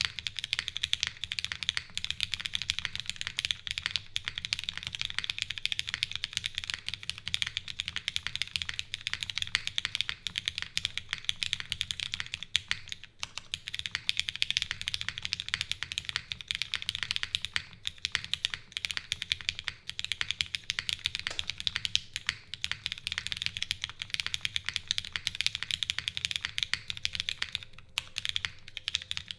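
Continuous fast typing on a custom mechanical keyboard: Cherry MX Black linear switches, lubed and filmed, in an O-ring mounted aluminium plate with no foam, under GMK keycaps, giving a dense run of keystroke clacks with the stabilized larger keys thrown in. A few brief pauses break the run, one about thirteen seconds in and one near the end.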